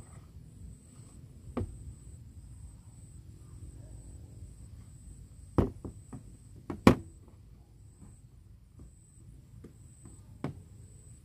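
A smartphone and a power bank being handled and set down on a hard table: about half a dozen knocks and taps, the two loudest close together about halfway through, over a steady low hum and a faint high tone.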